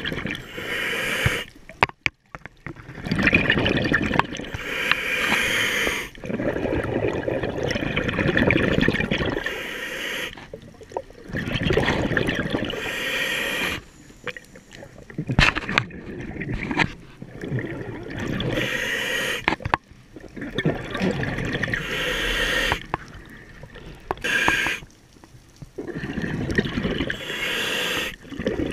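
Scuba diver breathing through a regulator underwater: a rush of bubbling exhaled air repeats about every four seconds, with short quiet pauses between breaths.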